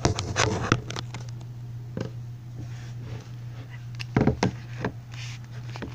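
Handling noise: a scattered series of knocks and taps as hands fumble with the recording device, over a steady low hum.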